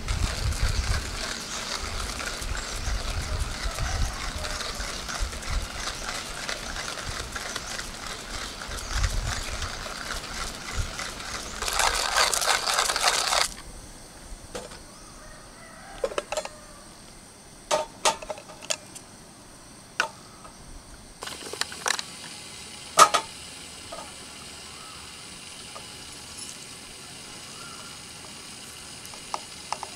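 A steady rushing noise fills roughly the first twelve seconds and ends in a short louder rush. Then come a few sharp clicks and glass-and-metal taps as a Captain Stag hand coffee mill is handled. Near the end a quick run of ratcheting clicks begins as the mill is cranked.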